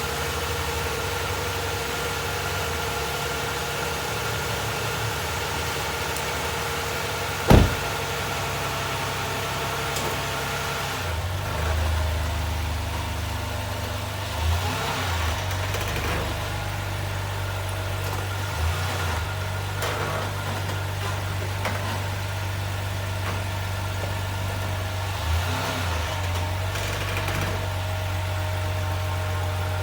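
2012 Lexus RX350's 3.5-litre V6 running steadily, with one sharp knock about a quarter of the way in. After that the engine note deepens, and a few short creaks or knocks come every few seconds. This is the creaking heard when pulling away or shifting gear, which the owner thinks could be a transmission or engine mount.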